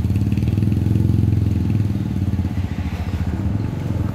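Diesel truck engine idling with an even, rapid pulse.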